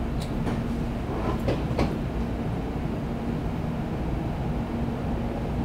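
Inside the cabin of a Kyushu Shinkansen train pulling out of a station: a steady low rumble with a steady hum, and a few sharp clicks in the first two seconds.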